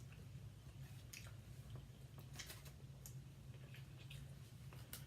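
Faint chewing and eating sounds, with a few short sharp clicks, over a low steady hum.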